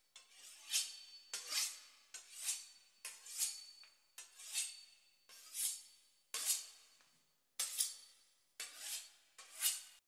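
A knife sawing through the pastry crust of a beef Wellington: about ten strokes, roughly one a second, each swelling and then stopping sharply.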